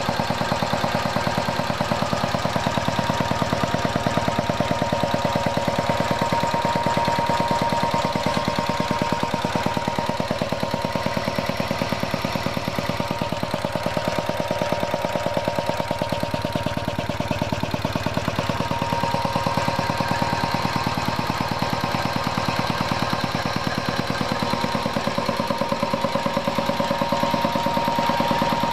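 1967 Liner Bros. belt-driven piston air compressor with a 5 hp electric motor running steadily, the pump chugging in a fast, even beat under a steady high whine.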